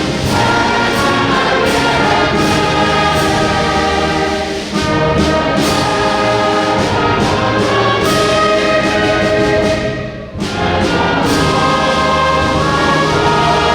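Orchestral music with prominent brass, with brief breaks between phrases about four and a half and ten seconds in.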